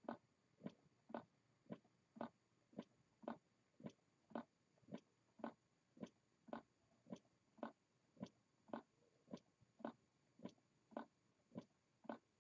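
Hand-made low-temperature-differential Stirling engine running on the warmth of a hand, its mechanism giving a faint, steady tick about twice a second.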